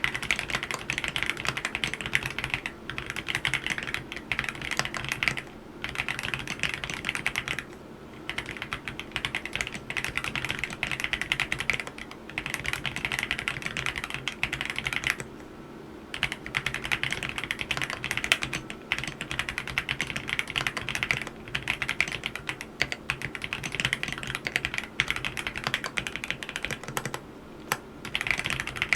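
Fast typing on an AULA F87 mechanical keyboard with yellow switches: dense key clacks in runs of a few seconds, broken by short pauses.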